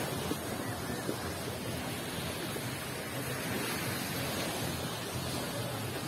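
Steady beach ambience: gentle surf washing on the shore, mixed with wind on the microphone.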